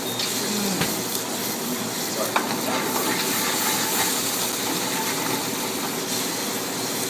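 Shrimp and vegetables sizzling steadily in sauce in an aluminium sauté pan over a gas flame, with a couple of sharp clicks.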